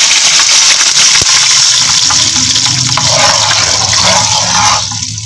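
Water poured into a hot frying pan of oil and cumin seeds, hissing and sputtering loudly as it hits the hot oil, then easing off near the end.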